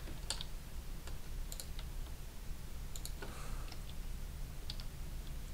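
Scattered computer mouse and keyboard clicks, a few at a time, over a steady low hum.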